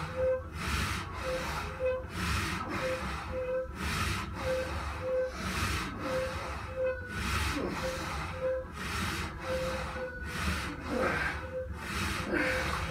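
A man breathing hard in and out in a steady rhythm, roughly once a second, through a set of wide-grip rows. A short squeak repeats in pairs along with the strokes.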